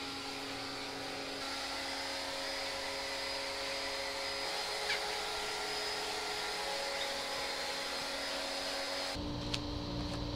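Wholesun electric pressure washer with a 1600 W motor running steadily, water spraying through its brush attachment onto a cushion at low pressure. The motor whine and spray cut off abruptly near the end, leaving a lower steady hum.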